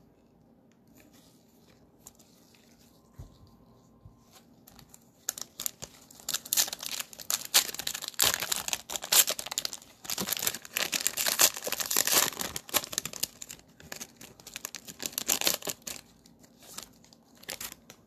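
Cellophane wrapper of a Mosaic NBA trading-card cello pack being torn open and crinkled: a dense crackling rustle that starts about five seconds in and lasts about ten seconds.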